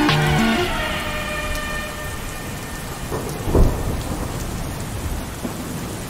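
Steady rain with a low thunder rumble about three and a half seconds in. A falling tone glides down over the first two seconds, and the last notes of a music phrase end about half a second in.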